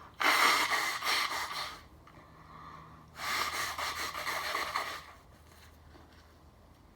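Two heavy, breathy exhalations, each lasting over a second and about three seconds apart, from a man whose nose is burning from snorted chhinkni sneezing powder.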